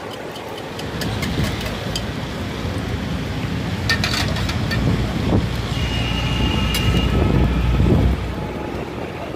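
Low rumble of nearby road traffic, building up and falling away shortly before the end, with a few light metal clicks about four seconds in.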